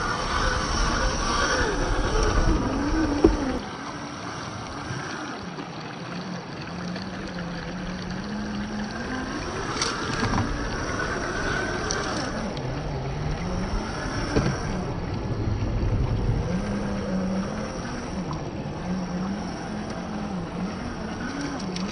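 Traxxas TRX-4 RC crawler's electric motor and gears whining, the pitch rising and falling with the throttle over a steady hiss. A few sharp knocks come through the middle.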